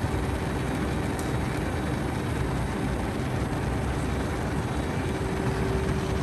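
Pair of rotating car-wash polisher brushes spinning, a steady whooshing of the brush material with a faint motor hum.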